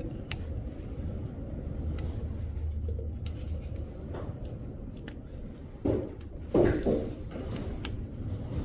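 Scattered light metallic clicks and clinks of tools and hub parts being handled during rear wheel hub reassembly, with a louder bout of handling noise about six to seven seconds in.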